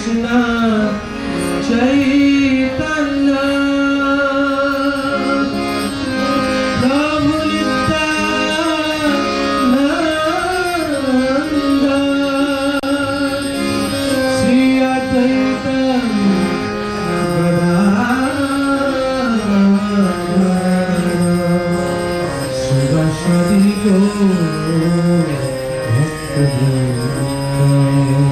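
Background music: an Indian-style melody that slides and bends between notes over a steady drone.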